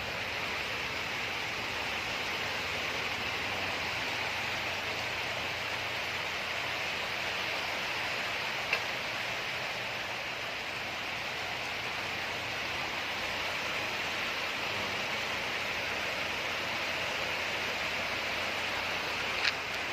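Steady rain falling, a continuous even hiss from a passing typhoon. Two brief faint ticks stand out, one about halfway and one near the end.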